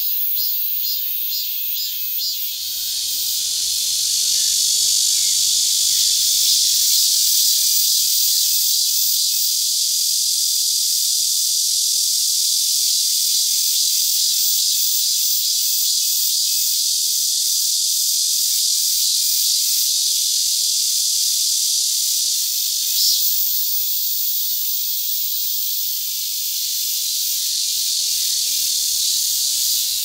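Min-min cicada (Hyalessa maculaticollis) singing loudly: a high-pitched rhythm of short repeated pulses at first, which merges about two and a half seconds in into a continuous shrill buzz.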